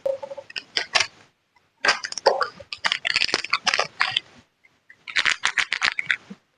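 Top cover being fitted onto an aluminum drone frame by hand: clicking, scraping and rattling of small metal parts in three spells, with short pauses between them.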